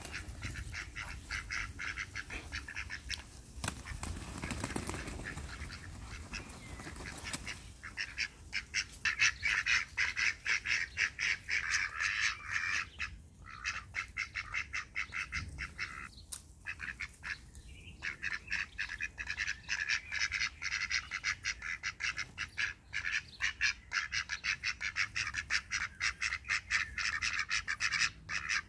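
Runner ducks quacking in a rapid, continuous chatter of short calls, fainter at first and louder and denser from about eight seconds in, with a few brief pauses.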